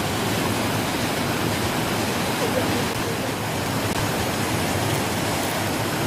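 Water rushing over Brooks Falls, a low river waterfall, making a steady, even hiss that doesn't change in level.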